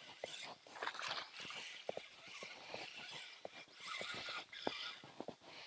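A just-landed bass being handled: irregular knocks and taps with short splashy rustles, one louder rustle about four seconds in.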